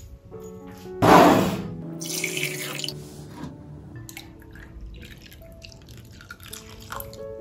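Milk pouring from a jug into beaten eggs in a glass bowl, splashing. It is loudest about a second in and then settles into a softer, steady pour, with light music underneath.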